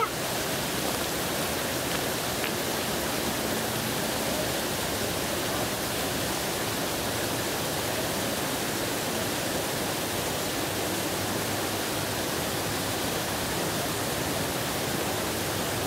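Steady, even rush of splashing water from large outdoor fountains.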